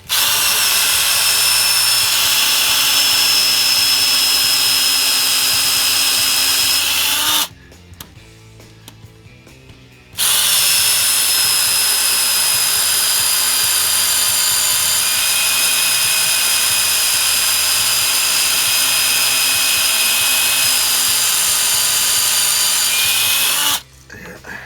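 Electric hand drill running at steady speed as it drills out an old rubber suspension bushing. It runs for about seven and a half seconds, stops for a couple of seconds, then runs again for about thirteen seconds and stops just before the end.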